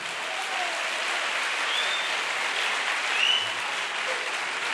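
Large seated audience applauding steadily in a hall.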